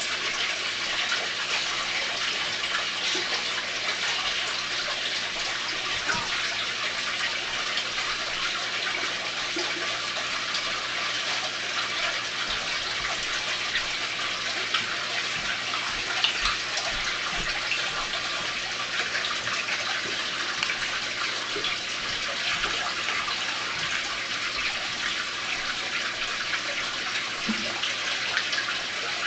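Water pouring steadily from a hose into an aquarium and splashing at the surface as the tank is refilled during a water change.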